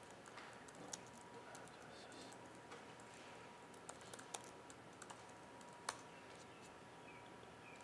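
Faint typing on a computer keyboard: a scattered run of soft key clicks as a terminal command is entered, with one sharper click about six seconds in.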